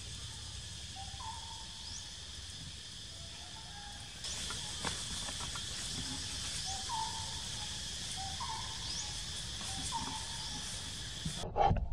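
Forest ambience: a steady high insect drone, with a bird giving a short two-note hooting call several times and brief high rising chirps. A thump sounds near the end.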